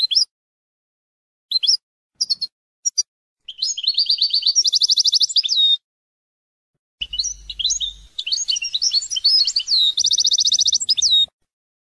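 European goldfinch singing: a few short twittering notes, then two longer phrases of quick, gliding twitters, each ending in a fast, even trill, with a pause of about a second between them.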